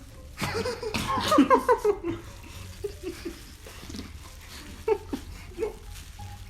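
Several people laughing: a loud burst of laughter about half a second in that lasts about a second and a half, then scattered quieter chuckles.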